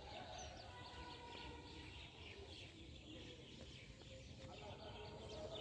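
Faint outdoor ambience: scattered short bird calls over a low, steady rumble.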